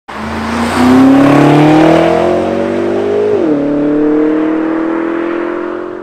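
BMW M6 (F12) 4.4-litre twin-turbo V8 with an Akrapovic exhaust, accelerating hard past on full throttle. Its pitch climbs, drops sharply at an upshift a little over three seconds in, then climbs again as the sound fades away.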